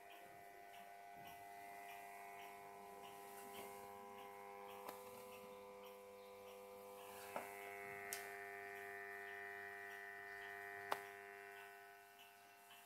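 Faint steady hum and several held tones from a switched-on Philco 71B cathedral valve radio, with a whistle near the top that rises slightly about seven seconds in and then holds. A faint regular ticking about twice a second runs underneath, and there are a few sharp clicks, the clearest about eleven seconds in.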